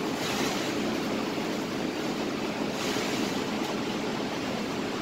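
Steady rushing of a commercial kitchen exhaust hood fan, with a faint hum under it. Brief plastic rustles come just after the start and again about three seconds in, as a cheese slice is peeled from its wrapper with gloved hands.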